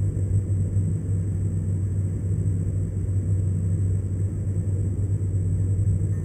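Steady low drone of a car cruising at highway speed, heard from inside the cabin: engine and tyre noise.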